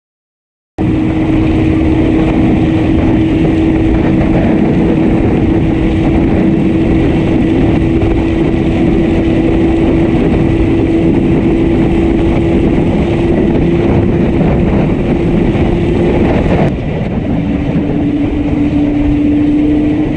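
Yamaha RD350 two-stroke twin running steadily under way, with a droning engine note over a heavy rush of noise. The engine has one cylinder misfiring heavily. About three-quarters of the way through, the level dips briefly and the engine note settles slightly lower.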